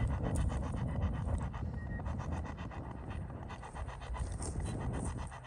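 Spirit box sweeping through radio stations: a steady, fast, even chopping of static and radio fragments.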